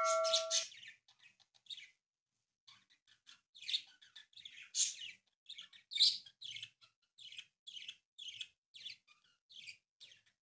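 A ringing chime sound effect fades out at the start. Then sheets of origami paper are pressed and creased by fingertips, giving short, scratchy, high-pitched rustles at an irregular pace.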